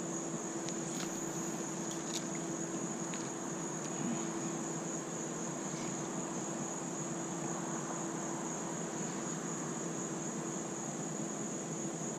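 Insects droning steadily at a high pitch, with a constant low hum beneath and an even background hiss.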